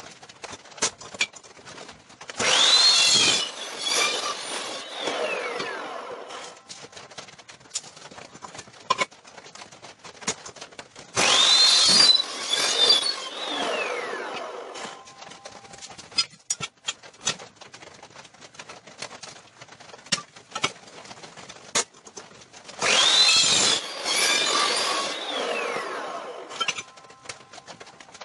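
Evolution metal-cutting chop saw making three cuts through metal bar, about 2.5, 11 and 23 seconds in. Each time the motor starts, the blade cuts through, and the motor winds down with a falling whine. Between cuts come clanks and clicks of the metal being moved and clamped in the saw's vise.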